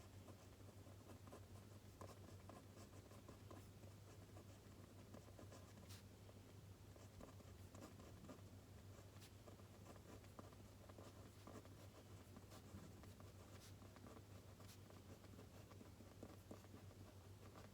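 Faint pen writing on paper, a steady run of small scratches and clicks, over a low steady hum.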